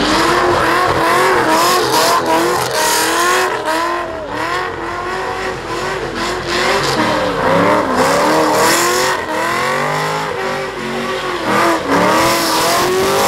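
A muscle car doing donuts: the engine is held at high revs and keeps rising and falling while the rear tyres spin and squeal on the asphalt.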